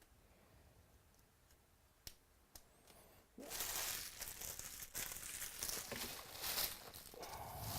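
A trading card pack wrapper being torn open and crinkled by hand, starting about three and a half seconds in after a few faint clicks.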